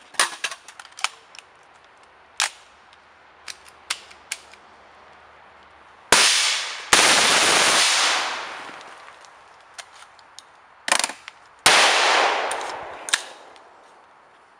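Shots from a suppressed 10.5-inch M16 overheated in a suppressor torture test: scattered sharp reports and clicks, then two very loud blasts, each trailing off in a long hiss over a couple of seconds. This is the run to failure, and its last round cooks off in the hot gun.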